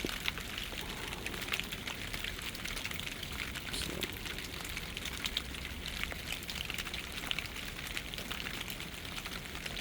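Steady rain falling, with the patter of many individual drops.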